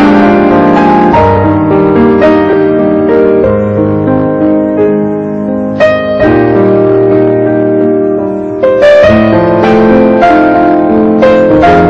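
Background piano music: sustained chords with a melody over them, with fresh strong chords struck about six seconds in and again near nine seconds.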